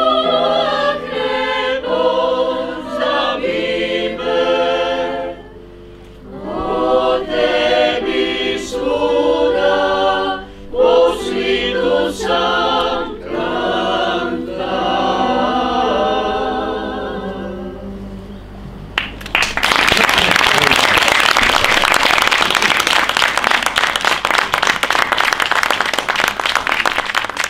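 Small mixed choir of men's and women's voices singing in phrases, with short breaks between them; the song ends about two-thirds of the way through and the audience breaks into applause.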